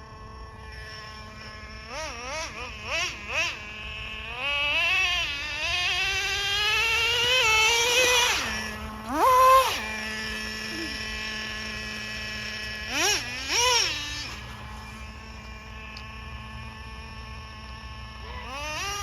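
Nitro RC car's small glow engine idling on a steady note and being revved: several quick throttle blips, then one long climb in pitch over about four seconds before dropping back, and more sharp blips later on.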